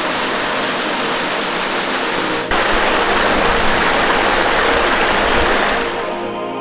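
Mountain stream rushing over small cascades and pools, a steady roar of water. About two and a half seconds in it changes abruptly to a louder, fuller rush, and it fades near the end.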